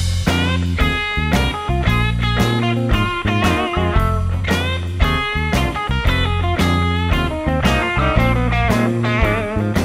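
Instrumental outro music: plucked, guitar-like notes over a heavy bass with a steady beat.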